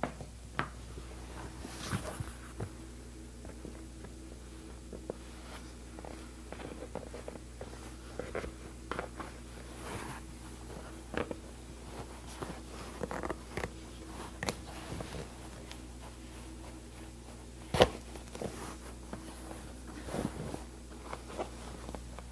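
Black leather upholstery being handled and pressed by hand while tufting a chair back: scattered rustles and small clicks, with one sharper click about eighteen seconds in, over a steady low hum.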